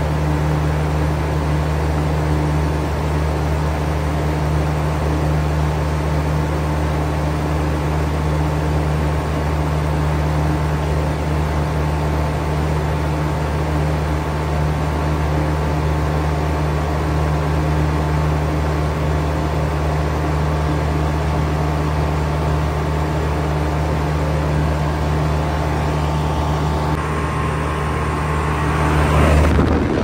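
2019 American Standard Odyssey commercial heat pump's outdoor unit running in cooling mode: a steady machine hum with its condenser fans blowing. It grows louder near the end as the microphone comes right up to a fan grille.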